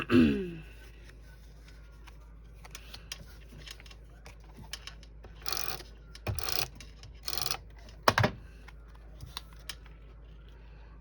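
Paper and card being handled on a craft desk: scattered light clicks and taps, with a few short rustles of paper close together about halfway through.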